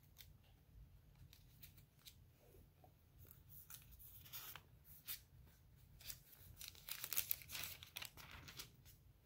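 Faint paper rustles and flicks from the pages of a book being leafed through, busiest a couple of seconds before the end.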